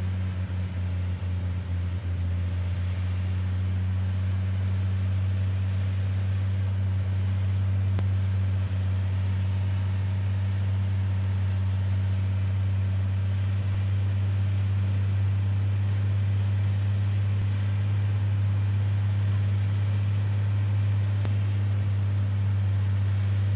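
Piper Cherokee 235's six-cylinder Lycoming engine and propeller running as a steady, unchanging drone in the cockpit, on short final approach.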